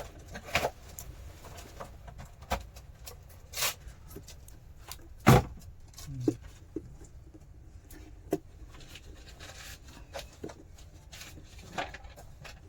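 Scattered clicks and taps of tools and parts being handled at a workbench during amplifier board rewiring, the sharpest single knock about five seconds in, over a faint steady hum.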